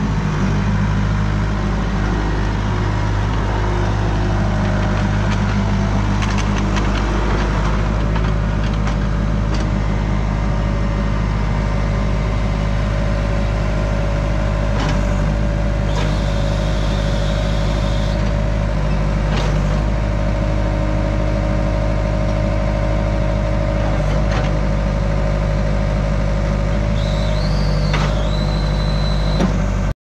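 1992 Case 1845C skid steer loader's diesel engine running steadily as the machine is driven about. A thin high whine comes in twice for a couple of seconds, about halfway through and again near the end.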